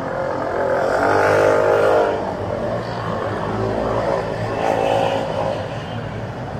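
Cars passing close by on a busy street, engines accelerating. The loudest pass is about two seconds in, and a second car goes by about five seconds in.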